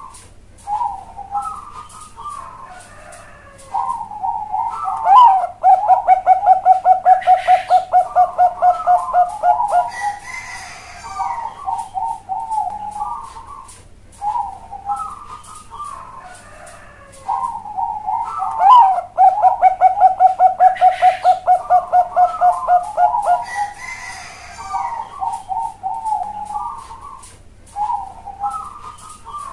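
Zebra dove (Bangkok perkutut) singing its cooing song twice. Each bout opens with a few short coos and breaks into a fast rolling run of about six even pulses a second, lasting several seconds, then ends in further coos.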